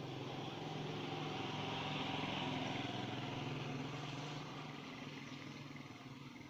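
A motor vehicle's engine passing by, growing louder to a peak about two to three seconds in and then fading away.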